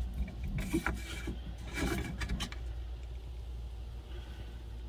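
Carrot sticks gathered by hand off a wooden cutting board and dropped into a crock pot: two clusters of light knocks and clatters, about a second in and about two seconds in, over a steady low hum.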